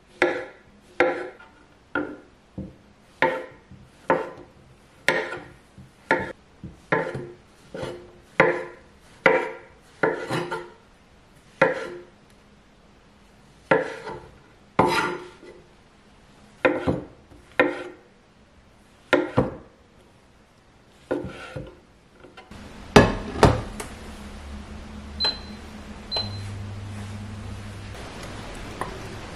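Kitchen knife slicing button mushrooms on a wooden cutting board: single sharp chops, about one or two a second with short pauses. Near the end the chopping stops; a couple of knocks follow, then two short electronic beeps about a second apart and a steady low hum.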